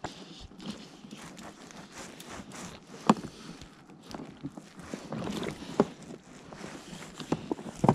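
Handling noise from hands working fishing line and a metal snap clip: rustling of cloth and line broken by a few sharp clicks and knocks, the loudest about three seconds in and another near the end.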